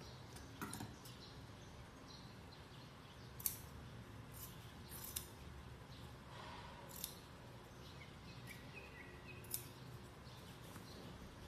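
Scissors snipping fabric: a handful of single sharp snips, a second or two apart, over a faint steady hum.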